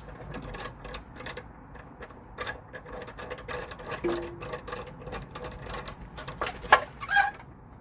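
Ratchet wrench clicking in quick, uneven runs as an exhaust hanger bolt is worked loose, with a sharp louder metallic click near the end.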